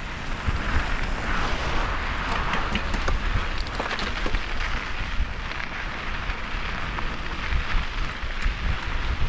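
Wind buffeting the microphone and mountain bike tyres rolling and crunching over a dirt and gravel trail, with scattered clicks and rattles from the bike over rough ground, most of them between about two and four seconds in.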